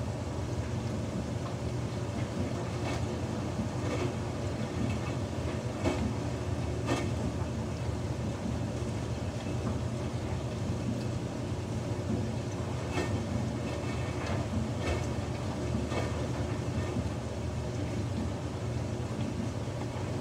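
Samsung front-loading washing machine tumbling a single towel in water: a steady motor hum with water sloshing in the drum and scattered soft knocks.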